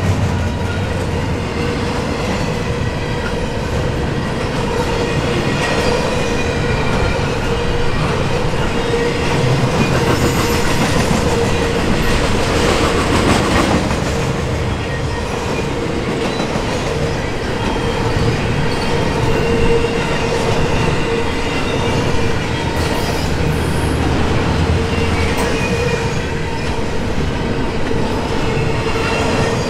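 Double-stack intermodal container cars of a freight train rolling past at close range: a steady rumble of steel wheels on rail with clattering over the rail joints. A steady high tone runs under it.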